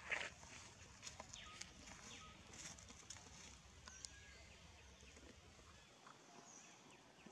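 Near silence: faint outdoor ambience with a few faint, short bird chirps and scattered small clicks and rustles, with one sharper click right at the start.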